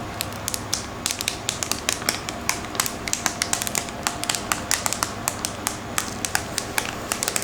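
Protective plastic film being slowly peeled off a new PC part, giving a dense, irregular crackle of small sharp clicks.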